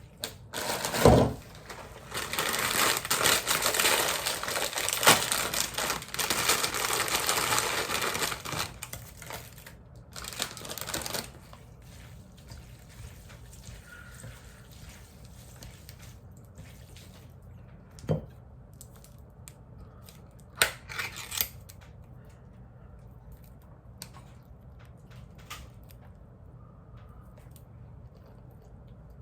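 Packaging crinkling and tearing for about ten seconds, then a few light knocks.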